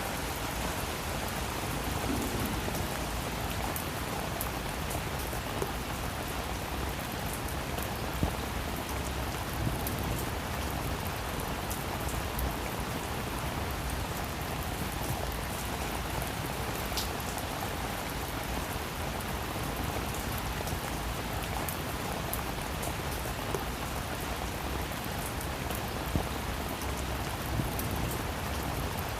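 Steady rain falling on a surface, with scattered sharper ticks of individual drops.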